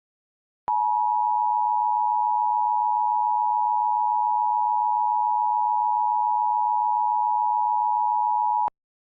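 Emergency Alert System attention signal: two close steady tones sounding together, held unchanged for about eight seconds. It starts and stops abruptly and announces an emergency alert message to follow.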